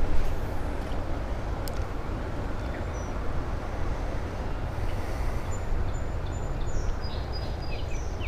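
Steady wind rumble on the microphone, with a few short bird chirps from about five seconds in.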